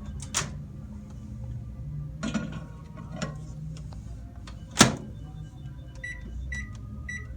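Microwave oven being handled: a few clicks and knocks, then a sharp bang like the door being shut just before five seconds in, followed by a run of short high beeps from the microwave about twice a second, over a low steady hum.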